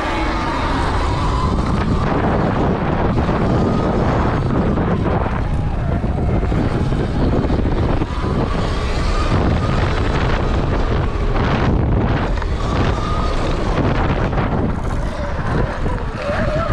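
Stock 2020 Sur Ron X electric dirt bike ridden hard on a dirt track: heavy wind buffeting on the microphone, with the electric motor's faint whine gliding up and down as the bike speeds up and slows.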